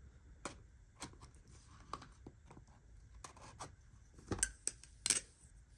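Packaging being handled and opened: scattered small clicks, scrapes and rustles, with a few sharper clicks a little past the middle.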